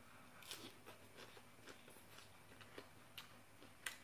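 Near silence broken by faint chewing of a mouthful of papaya salad and fresh greens: soft, scattered mouth clicks about one every half second, the sharpest near the end.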